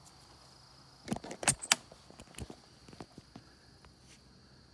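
A quick cluster of sharp clicks and knocks about a second in, then a few lighter scattered ticks, over a faint steady chirring of crickets.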